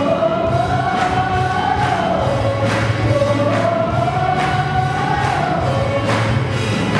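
Group singing a slow worship song in long held notes over a steady instrumental backing.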